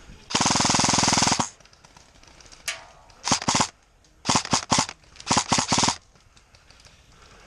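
Airsoft guns firing on full auto: one loud burst about a second long, then several shorter bursts a second or two later.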